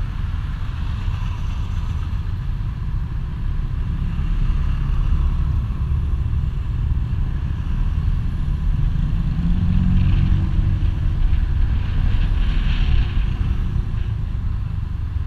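Motorcycle engine running under way, with a heavy low rumble of wind buffeting the action-camera microphone. About nine seconds in, the engine note rises briefly.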